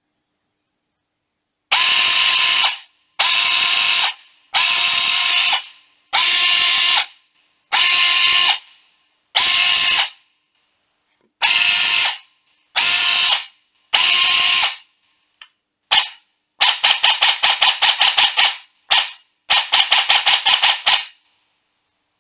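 Systema PTW airsoft gun with its stock, unmodified Etiny motor, run on an 11.1V LiPo with an M120 cylinder, whirring in about nine bursts of roughly a second each. Near the end come a few very short taps, then two fast strings of rapid pulses. This is the motor before its rewind, which the owner says would not stop at the true position.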